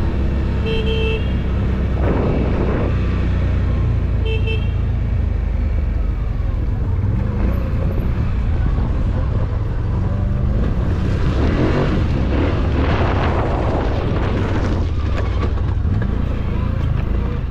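CFMoto CForce 1000 ATV's V-twin engine running steadily under way. A vehicle horn gives two short toots, about a second in and again about four seconds in. A rush of noise rises over the engine from about eleven to fifteen seconds in.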